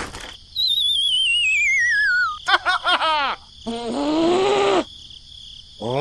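Cartoon sound effects: a click, then a long descending warbling whistle lasting about two seconds. A quick run of short springy boing sounds follows, then a brief squeaky cartoon-character voice about two-thirds of the way in.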